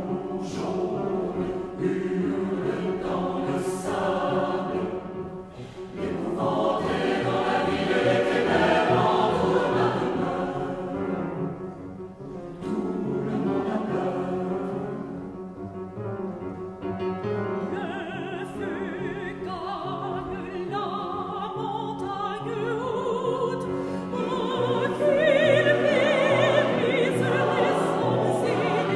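Mixed choir singing a classical cantata with instrumental accompaniment, in phrases, growing louder over the last few seconds.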